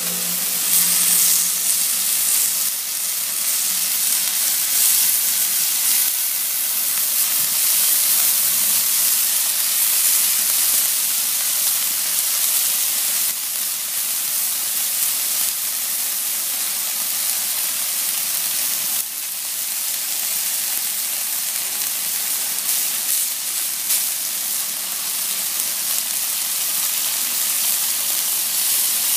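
Chicken strips sizzling steadily on a hot ridged grill pan.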